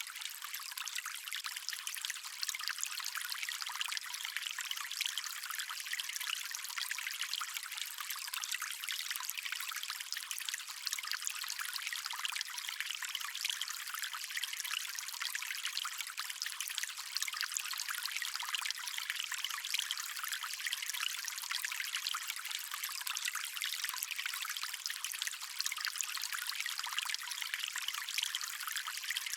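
Small stream of running water trickling and splashing steadily: an even, high-pitched rush with a fine, rapid flicker and no low rumble.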